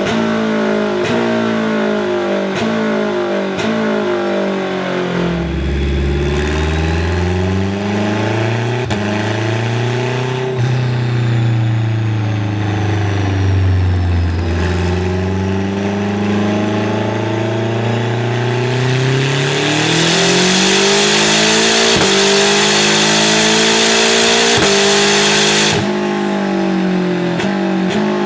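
Turbocharged race engine of a BMW E36 M3 hill-climb car running hard on a dyno, revving up and down several times as it is worked through the gears with paddle shifts, with sharp pops along the way. From about 20 to 26 seconds it holds high revs under a loud rushing hiss.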